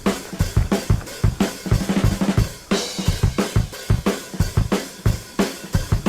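Background music with a steady, fast drum beat: kick, snare and cymbals.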